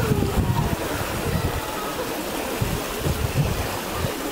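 Outdoor swimming pool ambience: swimmers splashing and water lapping, with wind gusting on the microphone as an uneven low rumble.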